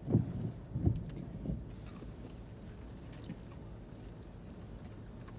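Low, steady rumble inside a car, with three soft, dull thumps in the first second and a half.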